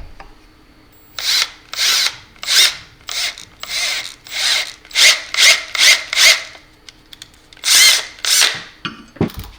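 Power drill with a tapping bit run in about a dozen short bursts, cutting threads in a side screw hole of the camera housing, with a short pause about two-thirds of the way through.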